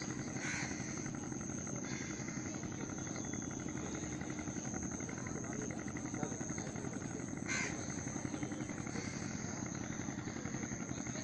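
Outdoor natural ambience: a bird gives three short calls, the loudest about seven seconds in, over a steady high insect drone and a constant low rumble.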